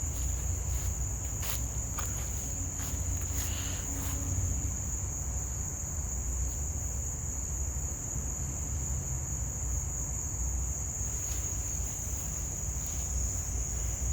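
Insects, likely crickets, chirring in one steady, unbroken high-pitched tone, over a steady low rumble.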